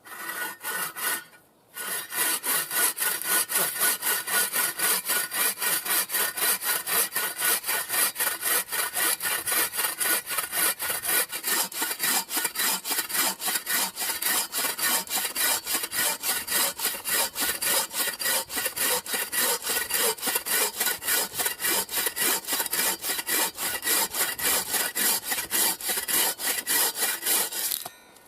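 A 30-inch Spring Creek folding bucksaw cutting through a log round in fast, even push-pull strokes, about three to four a second. After a brief start and a short pause it saws steadily and stops just before the end.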